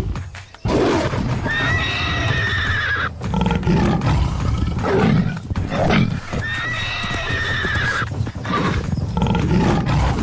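Horse whinnying twice, each call about a second and a half long and shaped almost exactly alike, over a steady low background noise.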